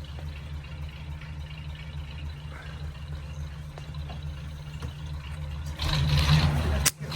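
1948 Ford V8 Pilot's flathead V8 engine idling steadily, growing louder and noisier about six seconds in.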